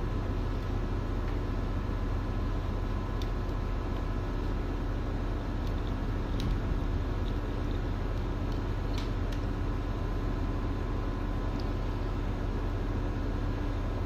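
Steady low machinery drone with a couple of steady hum tones. About half a dozen faint, sharp metallic clicks from a steel wire rope being worked strand by strand during a hand splice.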